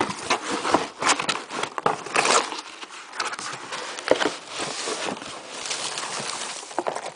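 Close-up rustling and crinkling of a parcel's cardboard and paper packing being handled and opened, with irregular scrapes and clicks.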